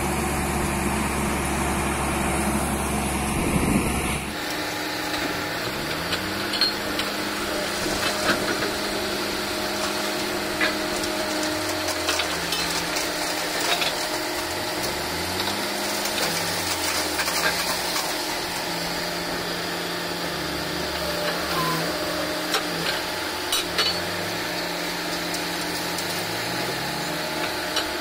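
Truck-mounted borewell drilling rig running steadily, with scattered metallic clanks. About four seconds in, the deep rumble drops away suddenly and a lower, wavering tone carries on.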